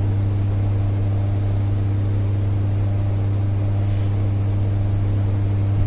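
A steady low machine hum, one unchanging pitch with fainter overtones above it, with a faint click about four seconds in.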